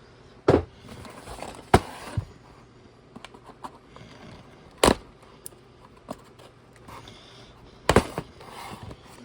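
Cardboard boxes being handled and opened: a few sharp knocks and taps at irregular intervals, with light scraping and rustling between them.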